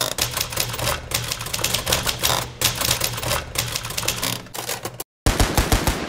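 Typewriter keys clacking rapidly, a typing sound effect for on-screen title text, cutting off about five seconds in. A quick run of low thuds follows near the end.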